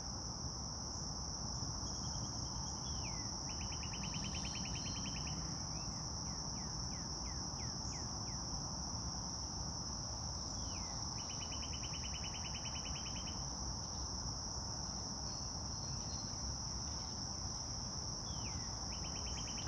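Outdoor ambience of a steady high-pitched insect drone, with a songbird singing a few times: each phrase is a short falling note followed by a fast, even trill lasting about two seconds.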